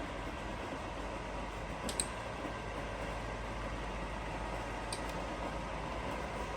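Novisa radial arm drill running with a steady mechanical hum while its spindle speed is being set to 1000 rpm. Two sharp clicks sound about three seconds apart.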